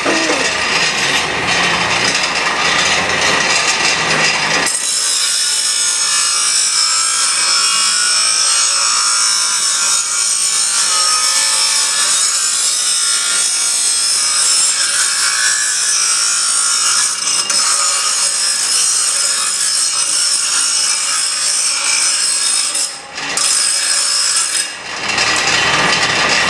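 Bench grinder grinding metal held against the spinning wheel, a harsh continuous grinding. It turns abruptly to a higher hiss about five seconds in and drops out briefly twice near the end.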